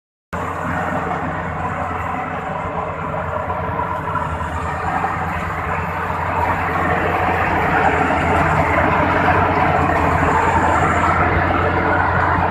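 Rice combine harvester running steadily, a low engine hum under a dense mechanical rushing, getting somewhat louder about halfway through.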